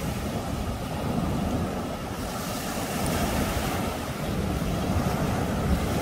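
Ocean surf breaking and washing up the beach, a steady rush, with wind rumbling on the microphone.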